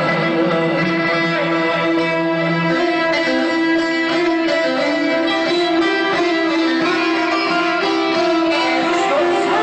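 Live band music, amplified through loudspeakers, led by plucked long-necked lutes over a steady held note, with a lower held note dropping out about three seconds in.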